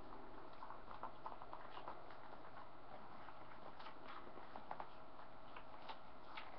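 Faint, irregular wet clicks and smacks of a Catahoula mother dog licking her newborn puppies, over a faint steady hum.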